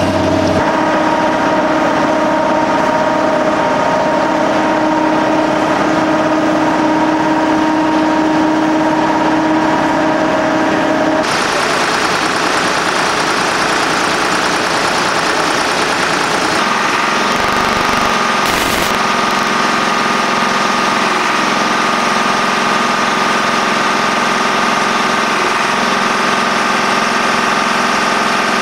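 Engines of heavy construction machinery running steadily. The sound changes abruptly twice, about 11 and 17 seconds in.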